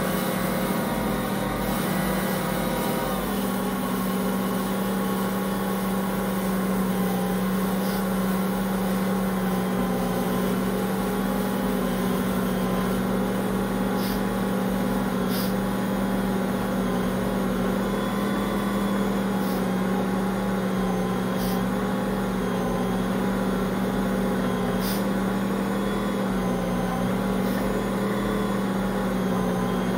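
Ankarsrum stand mixer running steadily, its motor turning the stainless bowl while the roller and scraper mix a stiff whole-wheat bread dough: a steady motor hum with a few faint ticks.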